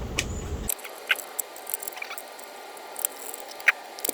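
Small laptop parts being handled and fitted together: scattered light clicks and taps of plastic and metal.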